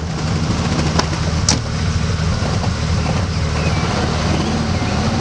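Pagani Zonda's Mercedes-AMG V12 running at low revs with an uneven low rumble. Its pitch climbs a little in the second half under a touch of throttle. Two sharp clicks come about a second and a second and a half in.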